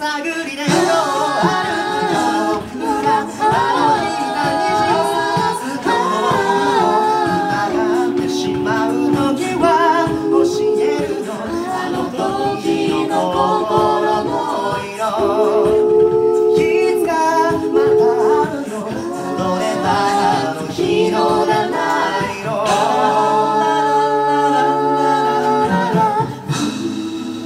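Six-voice mixed a cappella group singing in close harmony, with a bass vocalist underneath and vocal percussion keeping a beat. Near the end they hold a long chord over a low bass note.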